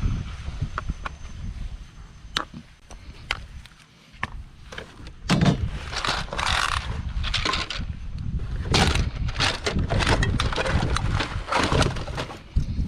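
Clattering, knocking and rustling of items being handled and rummaged through, busier from about five seconds in, over a low rumble.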